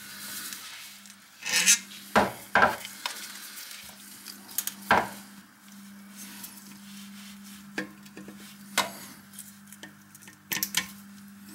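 Metal screwdriver scraping and clicking against a loose toilet closet bolt and washer at the toilet base, in irregular short scrapes. The bolt is loose because the toilet flange beneath is broken.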